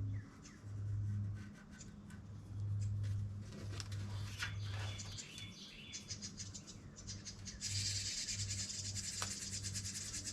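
Light clicks and handling of bicycle fender sheet metal, then a steady scratching from about eight seconds in, over a low hum.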